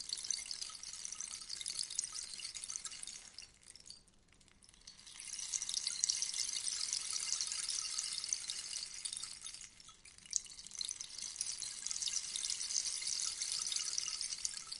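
Rainstick cascading: a dense patter of small pellets trickling down inside the tube, like light rain. Each run dies away, about four seconds in and again about ten seconds in, and a fresh cascade starts as the stick is turned over.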